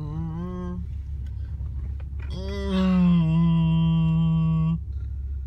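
A person humming: a wavering hum that stops about a second in, then one long steady held note from about two to nearly five seconds in. A steady low rumble of a car's cabin runs underneath.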